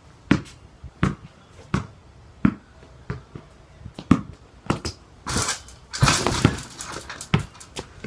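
A basketball is dribbled on a hard floor, one bounce roughly every 0.7 seconds. After about five seconds come a couple of seconds of noisy clatter.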